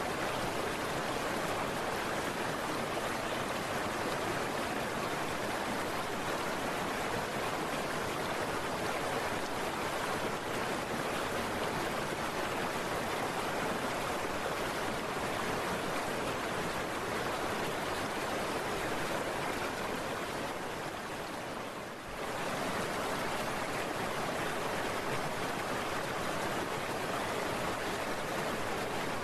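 Steady rushing noise of heavy rain and wind while riding a scooter. It dips briefly about three quarters of the way through, then comes back.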